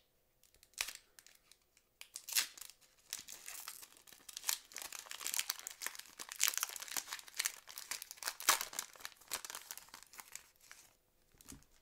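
Wrapper of a 2006 Fleer Ultra football card pack being torn open and crinkled by hand: a brief crackle, then a long run of crinkling and tearing that stops shortly before the end.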